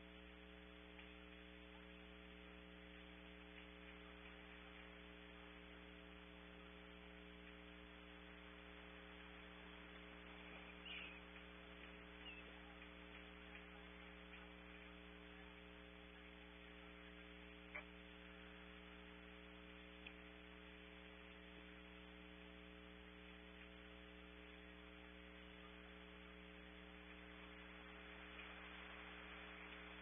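Steady electrical mains hum with faint hiss on a nest camera's audio feed. A few faint, brief clicks come around the middle.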